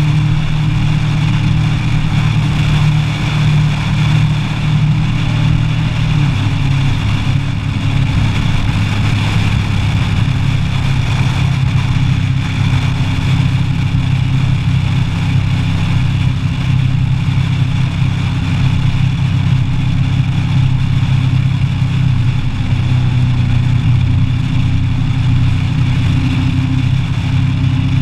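Kawasaki ER-6n's 649 cc parallel-twin engine running steadily on the move, with wind noise rushing past. The engine note steps slightly lower about six seconds in.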